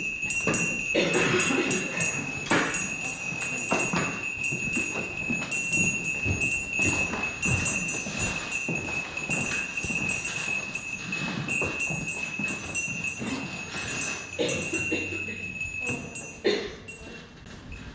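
A high, steady metallic ringing, like a chime or bell, with jingling above it and scattered knocks and shuffles of movement. The ringing stops suddenly with a knock near the end.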